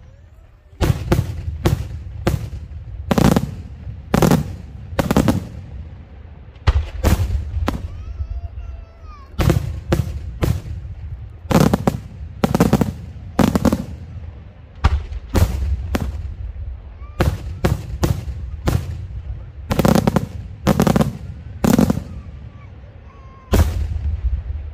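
Daytime aerial firework shells bursting overhead: a string of sharp, loud bangs, about one a second and unevenly spaced, with a low rumbling echo between them.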